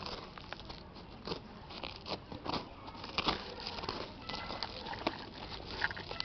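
Fingers digging and scraping through dry potting soil and fibrous ginger roots, making an irregular crunching and crackling.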